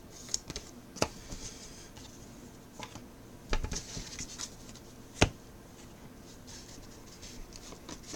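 Trading cards being handled at a table: light rustling and scattered small clicks and taps, with a sharper tap about five seconds in.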